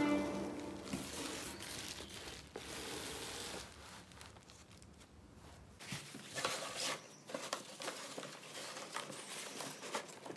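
Soft rustling and light knocks as a cardboard cat tent is handled, with a quiet spell in the middle. From about six seconds in come scattered crinkles and clicks as a fabric cover is pulled over the cardboard frame.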